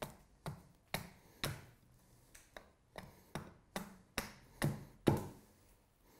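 Hatchet chopping down a wooden spoon blank held upright on a chopping block: about a dozen sharp strikes, roughly two a second, that stop about a second before the end.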